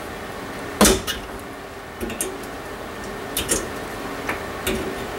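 Sharp clicks and light knocks of a bathroom exhaust fan's motor and metal mounting plate being handled, the loudest knock about a second in, then a few smaller clicks.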